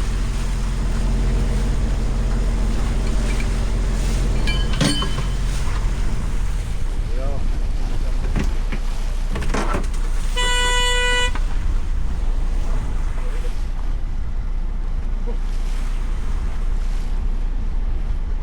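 Boat engine running steadily under wind and water noise on a crab boat. A single beep lasting about a second comes roughly halfway through.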